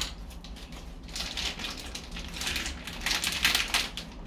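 Plastic packaging of carne seca (dried salted beef) crinkling as it is handled, in a few short bursts of crackly rustling.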